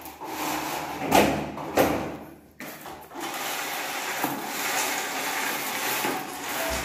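Aluminum window screen frame scraping against the window frame twice, about a second in and again just after. After a sudden cut, a steady hiss follows.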